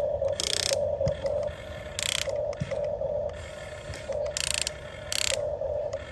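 Huina 1550 RC excavator's small electric motors and gearboxes whirring in short stop-start bursts of about half a second as its functions are worked, with four brief harsh rattling bursts from its gears.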